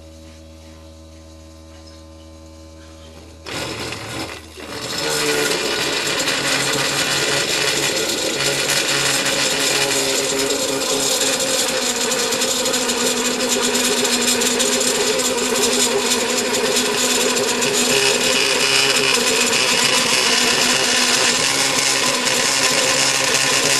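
Homemade motor-driven plastic cutter starting up about three and a half seconds in, then running steadily with a loud grinding noise as a plastic box is pressed against it.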